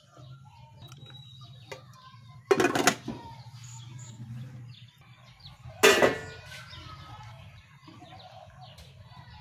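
Aluminium pot lid set onto a cooking pot with two quick metal clanks about two and a half seconds in. A louder metallic clang with a short ring follows about six seconds in.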